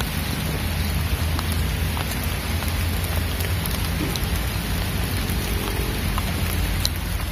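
Steady rain falling on a pond's surface: an even hiss with a constant low rumble underneath and a few faint sharp ticks of drops.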